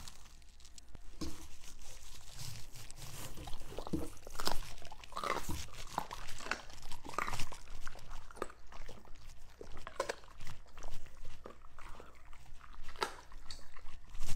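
Two dogs chewing and crunching food at a table, with irregular crisp crunches and mouth smacks coming a few times a second.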